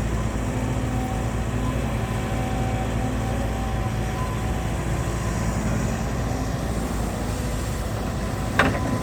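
Heavy diesel engine running steadily at a low rumble, with a single sharp knock near the end.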